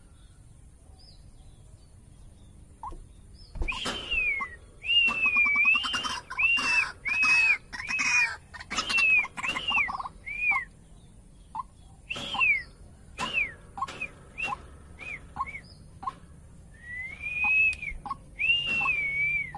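White-breasted waterhen calling: about three and a half seconds in it breaks into a run of loud, rapidly repeated arched whistling notes, then carries on with shorter clipped notes spaced out, and two longer drawn-out calls near the end.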